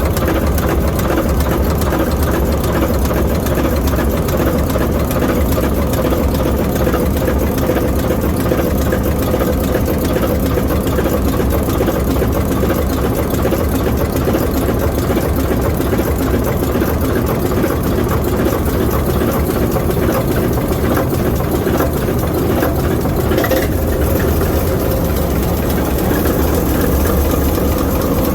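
ALCO 539T turbocharged inline-six diesel prime mover of an S4 switcher locomotive running steadily at an even, unchanging speed.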